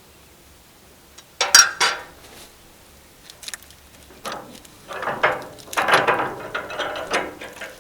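Metal clanking and rattling of steel sawmill hardware being worked, likely the log dogs or clamp being set against the log. There is a sharp cluster of clanks about a second and a half in, then a longer run of knocks and rattles from about four seconds in to near the end.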